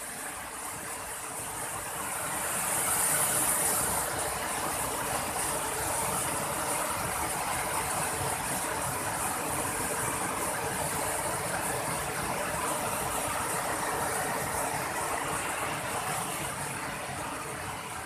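Waterfall and river rapids rushing: a steady, even noise that swells a little a few seconds in.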